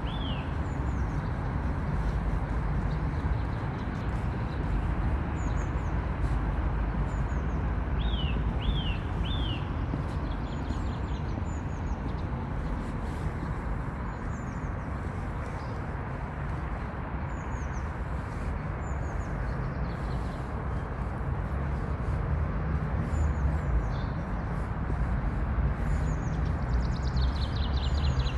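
Small songbirds singing: short downward-sweeping chirps, a run of three about eight seconds in, with other higher chirps scattered throughout and a quick descending trill near the end. All of it sits over a loud, steady low rumble, which is the loudest sound.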